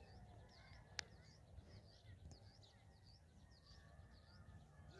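Near silence with faint, repeated high bird chirps, about three a second, and a single sharp click about a second in.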